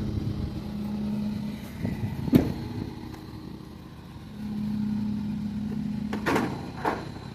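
A motor vehicle's engine hum that comes and goes twice, with a sharp knock about two seconds in and two clattering knocks near the end.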